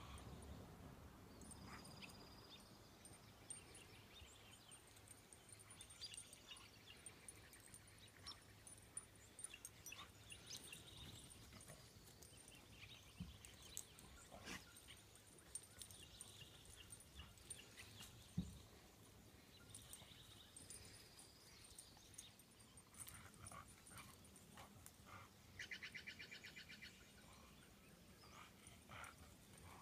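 Near silence: faint outdoor ambience with a few distant bird calls, a short trill near the end, and scattered soft knocks.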